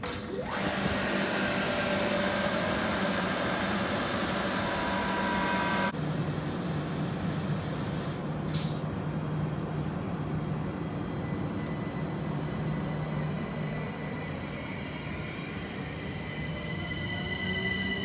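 Class 377 Electrostar electric trains: one rolls out past the platform with loud rushing wheel-and-rail noise and a whine rising slightly in pitch. About six seconds in it changes to another train standing with a steady low hum and a single sharp click, its motors whining up in pitch near the end as it starts to pull away.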